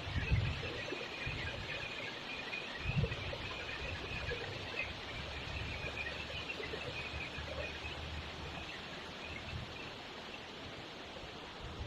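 River water flowing with a steady rushing hiss. A few soft low thumps come through it, the strongest right at the start and about three seconds in, and faint high chirps sound near the beginning.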